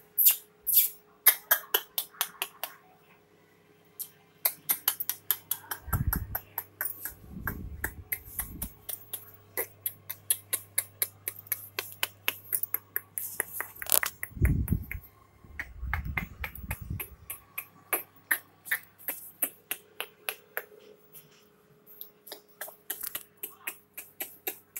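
A puppy's claws clicking rapidly and irregularly on a tiled floor as it scampers about, several clicks a second, with a few low rumbling bumps from the phone being handled.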